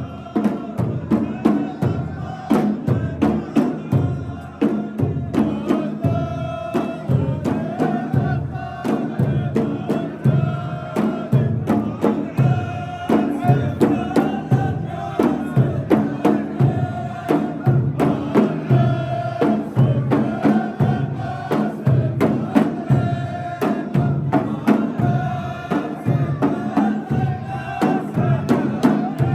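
Arabic wedding song: voices chanting a sung poem in unison, with long held notes, over a steady drum beat of about two strokes a second.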